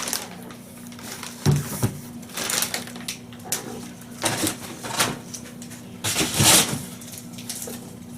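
Irregular knocks and rustling of packing material as a receipt printer is handled and unpacked, with a faint steady hum underneath.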